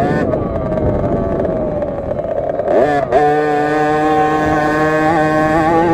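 KTM SX50 two-stroke 50cc minibike engine heard from on board. Its pitch sags slowly for about three seconds, then rises sharply as the throttle opens and holds at steady high revs.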